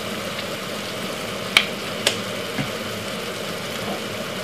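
Brown stew chicken sizzling and simmering in an uncovered pot, a steady hiss and bubble. Two sharp clicks about half a second apart come in the middle, then a soft knock, as a spoon or bottle strikes the pot.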